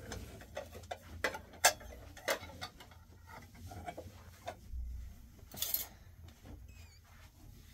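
Dishes and utensils being handled: irregular clicks and knocks, the loudest a sharp clack about a second and a half in, then a short hiss a little before six seconds.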